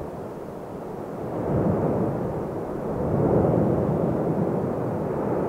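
Erupting volcano's continuous deep roar from its lava fountains, a rough rushing rumble like a distant jet. It swells from about a second and a half in.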